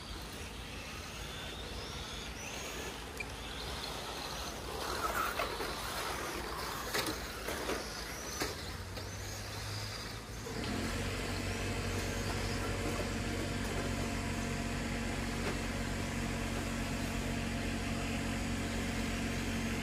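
Scattered short whines and a few knocks, then about halfway through a steady low engine hum starts and runs on evenly, like a motor idling.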